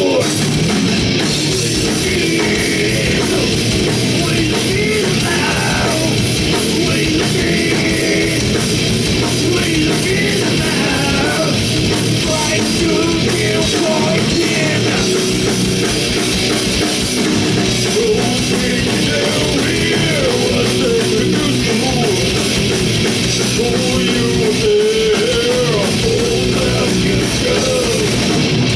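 Heavy rock band playing loud and without a break: distorted guitars, a fast-hit drum kit and a singer's voice over the top.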